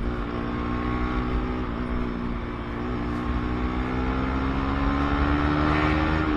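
Motorcycle engine running under way, its pitch climbing steadily in the second half as it speeds up, then dropping abruptly at the very end.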